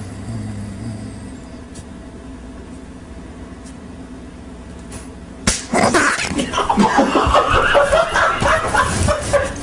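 Quiet room hum, then a sudden sharp smack about five and a half seconds in, followed by loud laughter and scuffling commotion.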